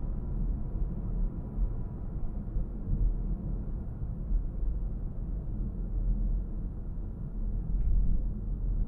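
Car driving on a city road: a steady low rumble of tyres and engine.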